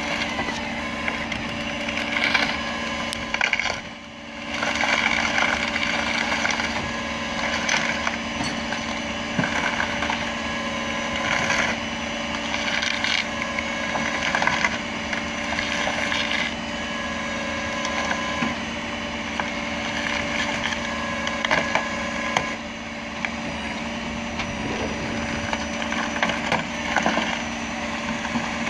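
Wrecker tow truck's engine running steadily with a constant hum, under irregular scraping, crunching and cracking as the overturned car is winched over the pavement.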